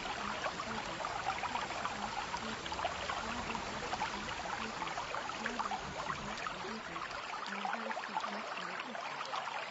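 Steady sound of trickling, flowing water, like a small stream.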